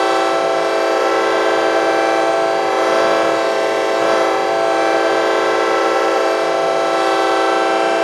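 Electronic vocoder sound effect: a steady, buzzy sustained chord of many stacked tones, held without a change in pitch.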